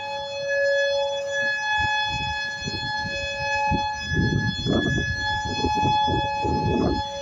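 Outdoor warning siren sounding a steady, unwavering tone with several stacked pitches. Bursts of low rumbling noise come in from about four seconds in.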